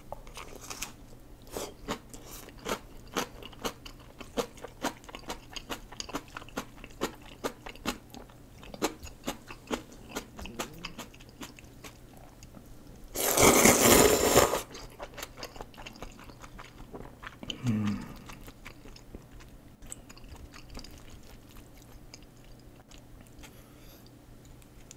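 Close-miked chewing of crunchy napa-cabbage kimchi, about two to three crisp crunches a second. About 13 seconds in comes a loud slurp of curry ramen noodles lasting about a second and a half, the loudest sound. Quieter chewing follows.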